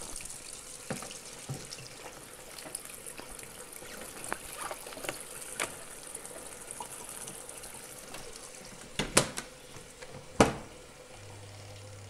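Wet clothes being pressed into a semi-automatic washing machine's plastic spin tub under its spin cap: wet handling, dripping and small plastic clicks. Near the end the plastic lids shut with two loud knocks, and right after, a low steady hum sets in as the spin timer is turned, the spin motor starting.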